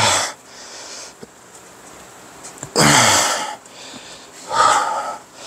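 A man's strained grunts and heavy breaths of effort, three of them: one at the start, a longer one with a falling groan about three seconds in, and another near the end, as he forces tight rubber rim savers onto a Onewheel wheel rim.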